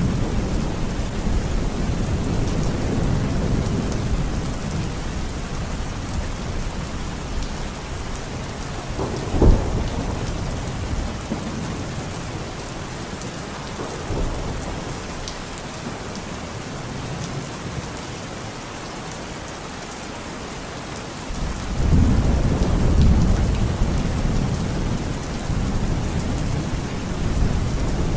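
Heavy rain pouring steadily, with thunder: low rumbling at first, a sharp clap about nine seconds in, and a loud rolling rumble that swells from about twenty-two seconds in.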